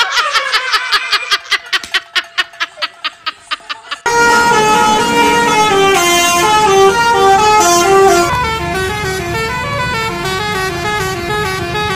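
A Basuri-type 'telolet' multi-tone bus horn: first a rapid string of short pitched toots, about six a second, then from about four seconds in a loud stepping melody played on its several horn tones.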